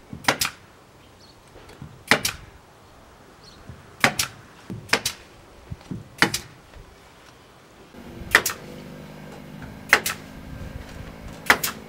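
Pneumatic staple gun firing about eight sharp shots, one to two seconds apart, fastening plastic sheeting to the kiln's wooden wall frame over glass wool insulation. A steady low hum comes in about eight seconds in.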